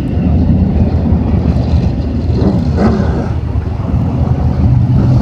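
A pack of IMCA Modified dirt-track race cars' V8 engines running together at low speed behind the pace truck: a steady, low drone.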